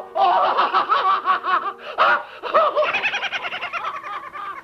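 Tom the cartoon cat laughing in rapid, chattering bursts. In the second half the laugh falls in pitch.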